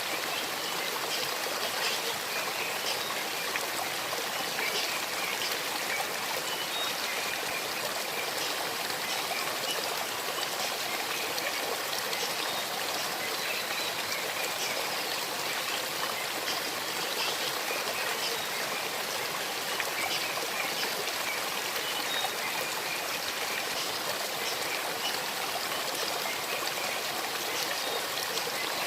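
Shallow stream babbling steadily over stones, a continuous rush of water with small trickles and splashes through it.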